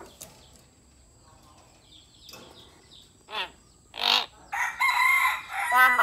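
Hill myna calling loudly: faint chirps at first, two short sharp calls about three and four seconds in, then a long wavering call near the end.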